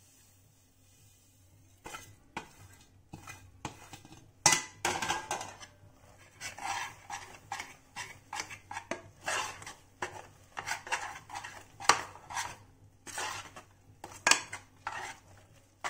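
Slotted metal spoon scraping and clinking against a saucepan as sesame seeds are stirred into thick melted jaggery. The strokes are irregular and start about two seconds in, with a few sharper knocks among them.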